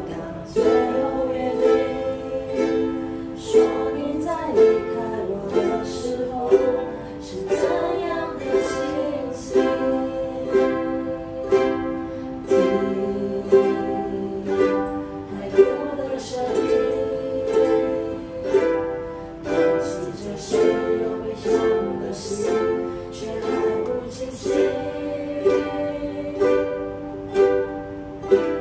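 An ensemble of ukuleles playing a song together: steady strummed chords with a plucked melody line over them.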